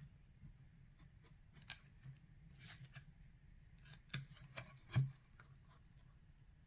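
A children's sound book being handled: scattered light clicks and rustling paper, with a louder knock about five seconds in.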